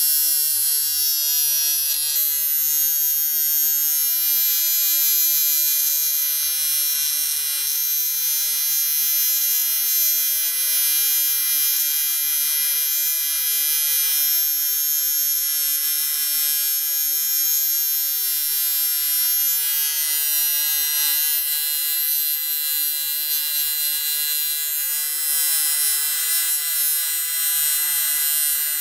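TIG welding arc buzzing steadily while a crack in an aluminium Volkswagen 1.9 diesel cylinder head is welded up with doubled filler wire. It is an even, high buzz with hiss.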